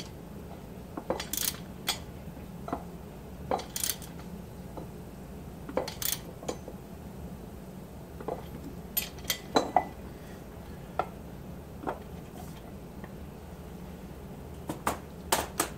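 Irregular metallic clinks and taps of hand tools on the metal parts of a 6-71 supercharger as bolts on the ends of its rotors are tightened, over a steady low hum.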